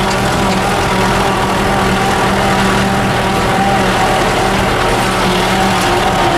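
A vehicle's engine running at a steady, low speed as it drives slowly over a rough dirt road, heard from inside the cab.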